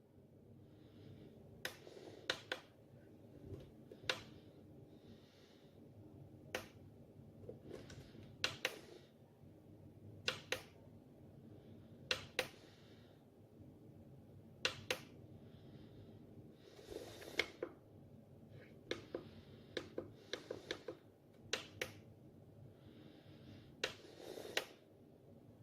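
Faint, irregular clicks and soft rustles of something being handled, roughly one click every second or two, with no motor running.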